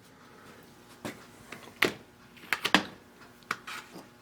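A handful of light, sharp clicks and taps at uneven spacing, with a quick cluster of them past the middle, from hands working at a milling machine during edge-finding setup.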